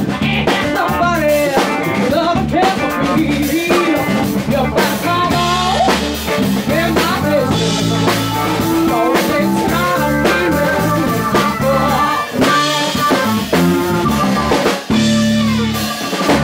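Blues band playing live: drum kit, bass, electric guitar and keyboard, with bending lead notes over the beat. The band stops together right at the end.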